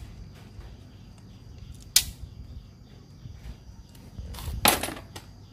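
Handling noises from a Honda GX50 brush-cutter carburettor being taken apart: a sharp click about two seconds in and a short scraping hiss near the end, over a faint steady high tone.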